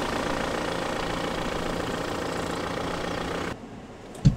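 Car engine idling steadily, then cutting off abruptly about three and a half seconds in. A short thump follows near the end.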